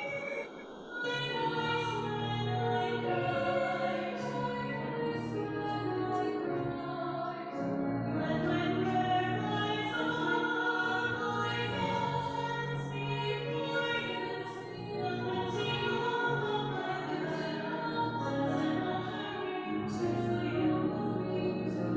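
Two women singing together, accompanied by a grand piano.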